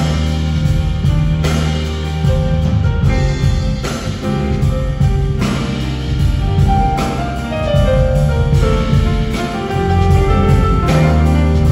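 Live jazz band playing an instrumental passage with no vocals, piano to the fore over drums.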